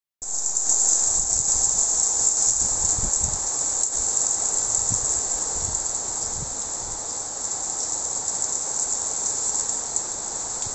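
Heavy, wind-driven rain falling in a steady high hiss, with irregular low buffets of wind on the microphone.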